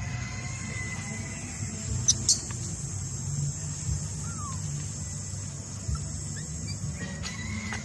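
Short high-pitched animal calls: two quick squeaks about two seconds in and a brief falling call a couple of seconds later, over a steady low background hum.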